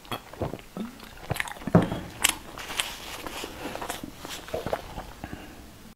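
A person gulping a drink from a small plastic bottle close to a clip-on microphone: wet swallowing and mouth sounds mixed with irregular clicks and a few sharper knocks.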